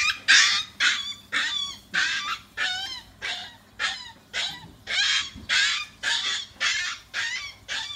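Puppy squealing and yelping over and over, about two harsh cries a second, as its mother carries it in her mouth.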